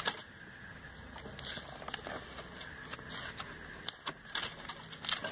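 Glossy catalogue pages being handled and turned: soft paper rustles with scattered small crackles and clicks at irregular moments.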